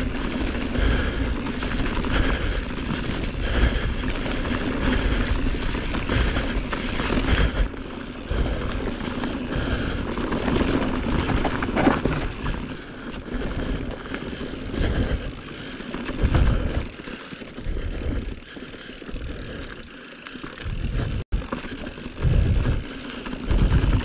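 Wind buffeting an action-camera microphone while a mountain bike descends a dirt trail at speed, with the steady rumble and rattle of knobby tyres and the bike over the ground. The sound swells and dips with the wind and cuts out for an instant near the end.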